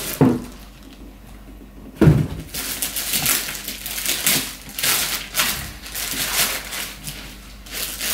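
Cardboard box and packaging being opened and handled, with rustling and crackling and a sharp thump about two seconds in.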